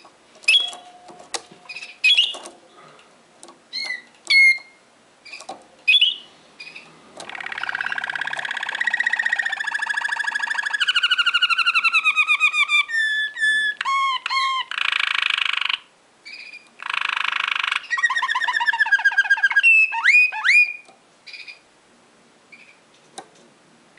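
Waterslager (Malinois) song canary singing. A few short, sharp chirps come first, then from about seven seconds a long, unbroken song of rolling trills and rapid repeated notes, and a few more sharp chirps near the end.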